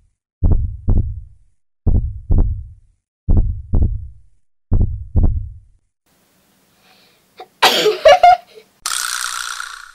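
A heartbeat sound effect of low double thumps, four beats about a second and a half apart, then a sneeze about three-quarters of the way through, the loudest sound, followed by a short hiss near the end.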